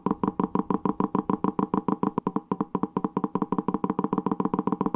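A parallel-twin firing-order demonstration: a rhythmic train of short, identical putt-putt pulses, about ten a second, first as the even beat of a 180-degree crank, then changing partway through to the uneven 270-degree rhythm.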